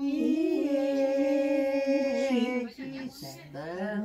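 A woman singing a song unaccompanied, holding long notes that waver slightly in pitch, with a short break about three seconds in before the next note.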